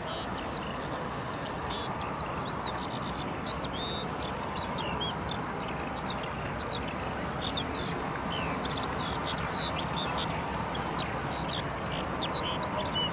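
Airbus A350-900's Rolls-Royce Trent XWB engines at taxi idle, a steady rushing hum that grows slightly louder as the jet comes closer. Many small birds chirp rapidly over it.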